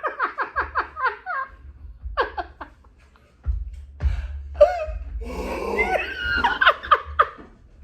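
People laughing: a quick run of rapid laugh pulses, falling in pitch, in the first second and a half, then more laughing after a short lull.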